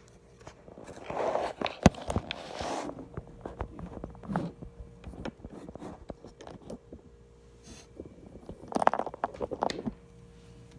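Computer keyboard typing: irregular clatter of keystrokes, in two quick flurries about a second in and near the end, with scattered single key clicks between, over a faint steady hum.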